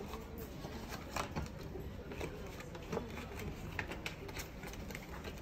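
Watch boxes and packaging being handled: scattered light clicks and knocks, roughly one a second, over a low background hum.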